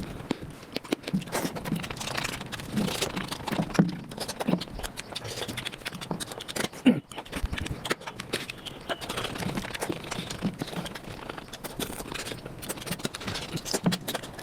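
Eating sounds of mutton nalli (bone marrow) sped up several times: a continuous, rapid patter of chewing, smacking and slurping clicks.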